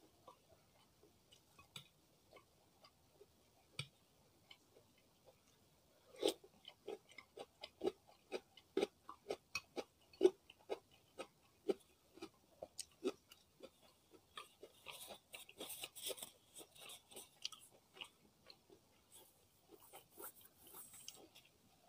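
Close-miked chewing of a mouthful of food with the mouth closed: wet mouth clicks, sparse at first, then about two chews a second for several seconds. Soft rustling follows near the end.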